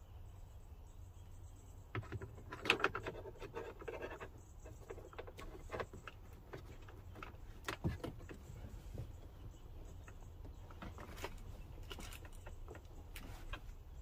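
Hands working a wire through a dashboard switch-blank opening: small plastic clicks, taps and rustles, densest about two to four seconds in, with a single sharp click near eight seconds, over a steady low hum.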